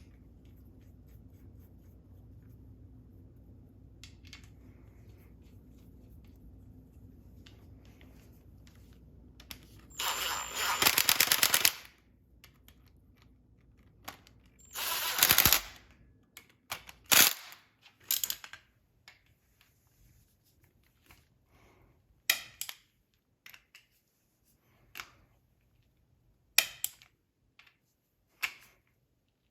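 Hand-tool work on an engine: two bursts of rapid, dense clicking, the first about two seconds long and the second about a second, then scattered single sharp clicks and knocks of tools and metal parts.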